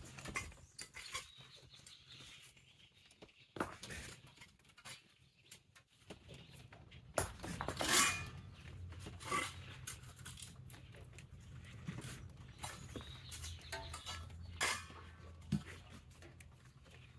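Rake dragged through wet beach sand and stones in separate scraping strokes a few seconds apart, the loudest about eight seconds in.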